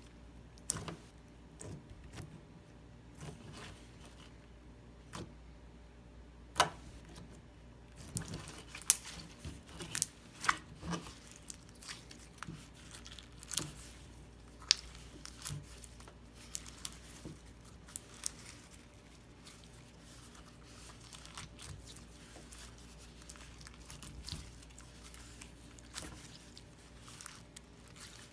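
Hands working a sticky slime, giving irregular sharp clicks, pops and crinkly tearing sounds. The clicks come sparsely at first and grow denser about eight seconds in.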